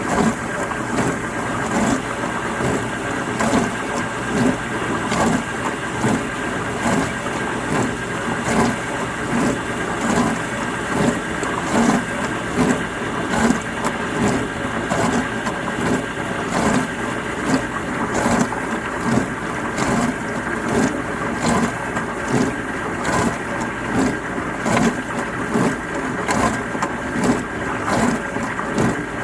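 Dishwasher running through a wash cycle: a steady motor hum under spraying water, which surges and swishes in a regular rhythm about once a second.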